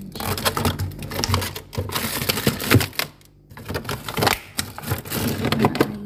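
Plastic food containers and produce bags clattering and rustling as they are moved around in refrigerator drawers: a quick, uneven run of clicks and knocks, with a short lull about three seconds in.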